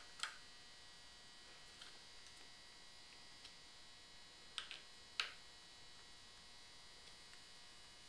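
A few sharp little clicks of a tool on the screws of aluminum scope-ring mounts as they are snugged down, the loudest about five seconds in, over a faint steady electrical hum.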